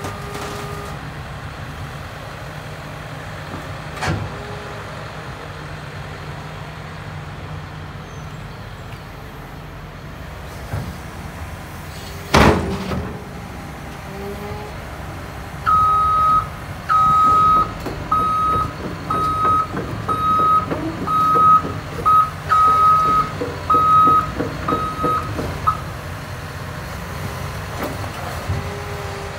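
Caterpillar 316E hydraulic excavator's diesel engine running steadily, with one sharp loud clank about twelve seconds in. From about sixteen seconds a travel alarm beeps repeatedly at one pitch for about ten seconds as the excavator tracks.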